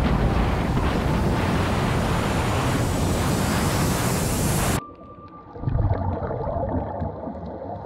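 Loud wind noise buffeting the microphone during a quad-bike ride across open desert. About five seconds in it cuts abruptly to muffled, much quieter underwater sound, with a low rumble of a scuba diver's exhaled bubbles.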